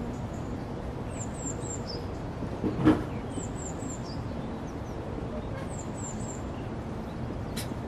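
A small songbird singing: a high phrase of three quick falling notes, repeated every couple of seconds over steady background noise. One short, louder noise comes about three seconds in.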